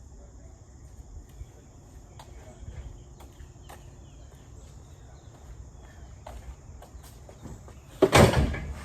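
Scrap and junk being handled: scattered light knocks and clicks, then one loud clatter about eight seconds in.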